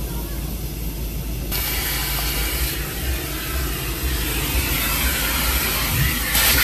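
Vacuum cleaner running steadily, sucking up crumbs from a car's interior. The hiss of air through the nozzle grows much louder about a second and a half in, with a brief surge near the end.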